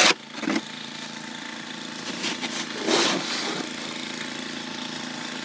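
A small engine running steadily, with a few brief sharp sounds near the start and about three seconds in.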